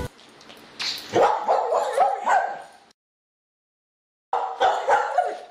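A dog yipping and barking in quick runs of short calls, broken by about a second and a half of dead silence in the middle.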